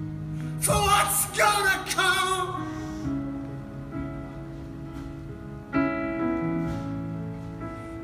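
Live band music with sustained held chords; a voice sings out strongly for a couple of seconds about a second in, and a new chord comes in near the end.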